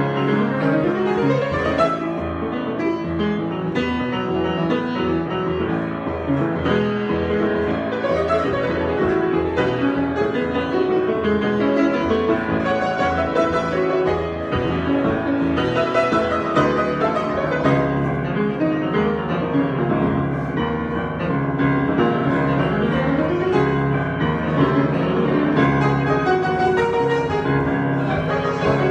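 Piano improvisation: a continuous, dense flow of notes with quick rising runs at the start.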